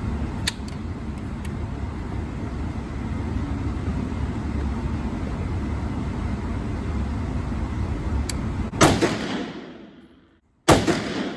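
Two rifle shots about two seconds apart near the end, each a sharp crack with a short ringing tail, from an AR-style rifle being sighted in. Before them, a steady low rumble of background noise.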